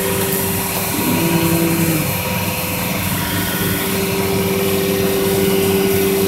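Vacuum pump of a Biesse CNC router's vacuum hold-down table, running with a steady hum, holding down a board whose edges are taped to seal it. About a second in, an extra lower tone sounds for about a second.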